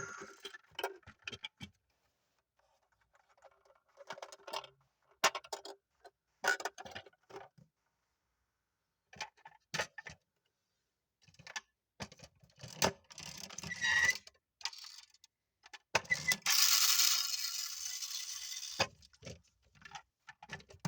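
Clicks, taps and small metallic rattles from a die-cast metal miniature truck being handled, in scattered bursts with short silences between. About sixteen seconds in comes a hissing burst that lasts a couple of seconds.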